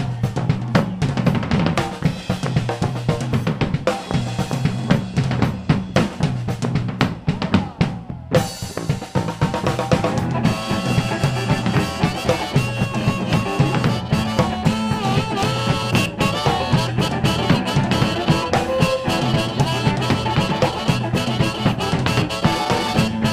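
Live blues band drum kit playing a short featured break over the bass line, snare and kick prominent. About eight seconds in the guitar comes back in and the whole band plays on together.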